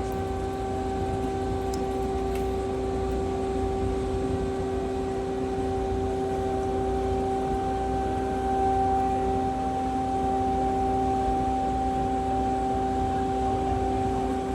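A large engine running steadily: an even, pitched drone over a low rumble, with no change in speed.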